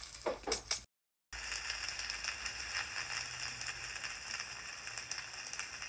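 Fire crackling, a steady hiss dotted with small pops, cutting in after a brief dead-silent gap about a second in. Before the gap there is a short separate sound with a few sharp strokes.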